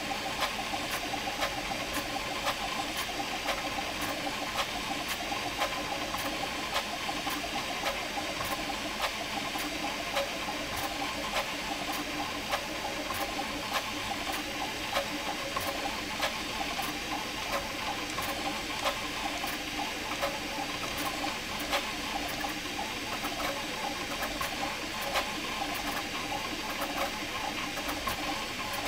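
Prusa MK4 3D printer printing a Benchy at high speed with input shaping: the stepper motors whir in shifting tones as the print head darts about, over a steady hiss with frequent small ticks.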